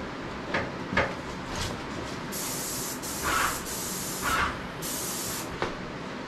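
Graco 390 airless paint sprayer's gun hissing as it sprays oil-based paint onto a hanging shelf, in a few passes with short breaks, from about two seconds in until about a second before the end. Two short knocks come before the spraying starts.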